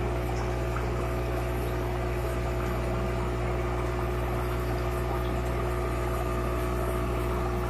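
Steady low hum of an aquarium pump, with a faint hiss of moving water.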